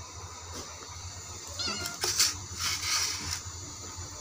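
A domestic cat gives one short, high meow about one and a half seconds in, followed by a second or so of rustling noises.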